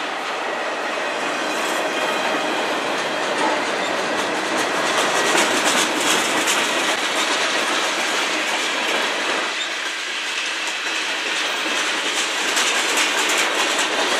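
Freight cars of a manifest train (autoracks, tank cars, a covered hopper) rolling past close by: a steady rush of steel wheels on rail, with repeated clacks as the wheels cross rail joints.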